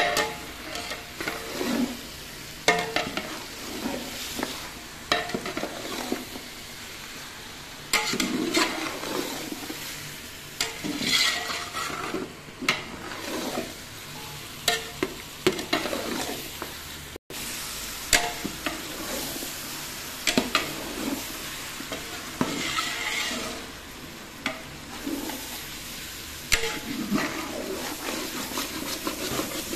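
Metal spatula stirring and scraping chicken pieces around a stainless steel pot, with irregular clinks and scrapes against the pot, over a steady sizzle of the chicken frying.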